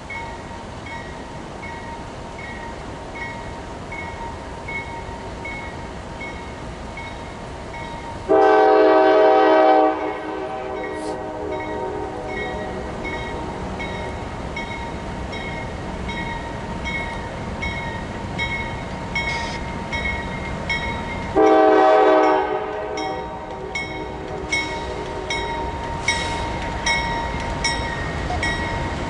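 Locomotive air horn sounding two chord blasts, each about a second and a half long and some thirteen seconds apart, over a bell dinging steadily about once a second. Near the end the clicking of train wheels over rail joints starts and grows.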